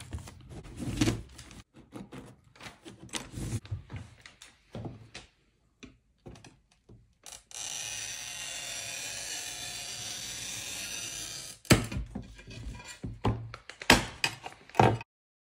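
Stained-glass repair work: broken glass shards being picked out with a hand tool, with irregular clicks and knocks. Then a glass cutter scores a sheet of clear glass with a steady hiss lasting about four seconds, followed by several sharp clicks and snaps as the scored glass is handled and broken.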